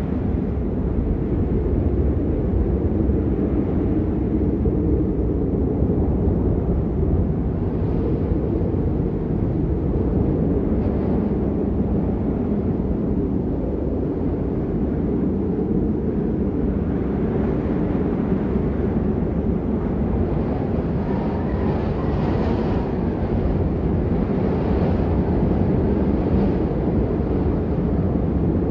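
Howling blizzard wind blowing in a steady low rush, with gusts that swell brighter and hissier about two-thirds of the way through.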